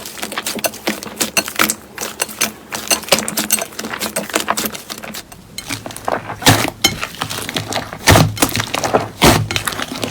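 Slime being squeezed and poked by hand, giving dense, irregular clicking and crackling pops. Heavier, deeper squishes join in from about the middle on.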